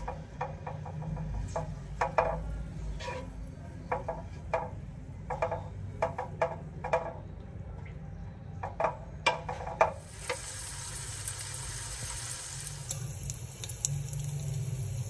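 A wooden spatula knocking in a nonstick frying pan: a string of sharp clacks that ring briefly. About ten seconds in, pork sizzles steadily as it fries in oil in the pan. A low steady hum runs underneath.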